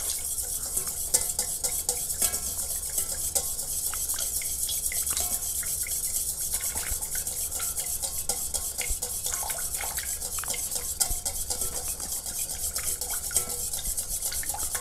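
Wire whisk stirring fast in a stainless steel mixing bowl: a steady, dense scraping and ticking of wire on metal. It is whisking warm Swedish bitters tincture into melted wax and oil to emulsify them into a salve.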